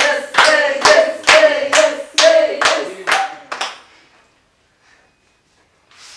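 A small group clapping in time, about two claps a second, with cheering voices held over the claps; it stops a little under four seconds in.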